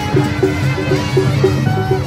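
Traditional-style music with a quick, steady beat of short repeated notes over held tones.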